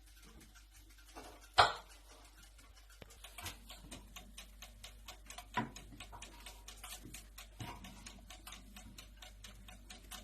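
Fast, even mechanical ticking, about five ticks a second, with one loud sharp click about one and a half seconds in and a couple of softer knocks later.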